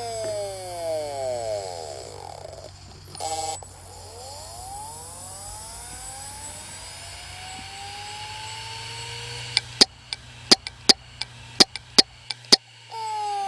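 Failing hard disk drive, the sign of a broken read head: whines that keep falling in pitch and overlap, a short burst of noise, and one slow rising whine. Then about nine sharp irregular clicks over three seconds, after which the sound cuts off and falling whines start again near the end.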